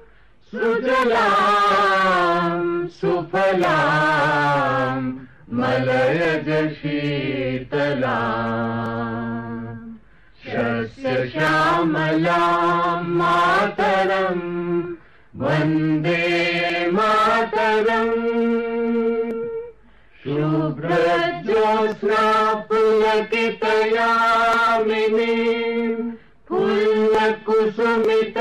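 A voice singing slow, drawn-out chant-like phrases with no instruments, pausing for breath every few seconds.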